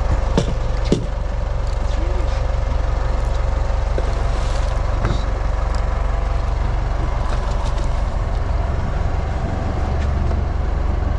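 Fishing boat's engine idling with a steady low rumble, with a sharp knock about a second in.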